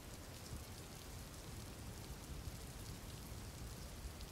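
Steady, faint rain: a soft, even hiss with scattered small drop ticks.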